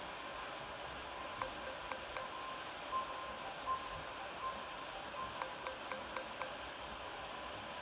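Nokia N8 ringtone playing: four quick high beeps, a few softer single tones, then five quick high beeps, over a steady hiss.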